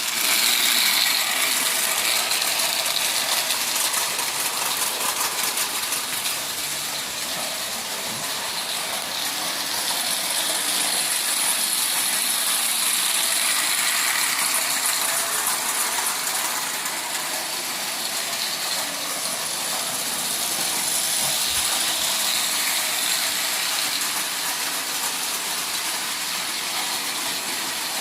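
Prewar Marx tinplate electric train running steadily on a loop of tinplate O-gauge track: gear-driven motor whirring and wheels clattering over the rails, its level rising and falling gently as it circles.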